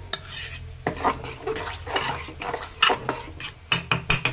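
A metal spoon stirring thick khichuri in a metal pot, clinking and scraping against the pot's sides and bottom in irregular strokes, with a run of louder knocks near the end.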